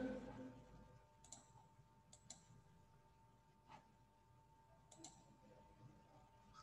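Near silence: room tone with a faint steady tone and a few faint, scattered clicks.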